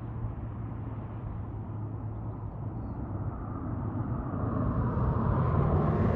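EP20 electric passenger locomotive approaching along the line, heard as a low rumble that grows steadily louder and brighter from about four seconds in.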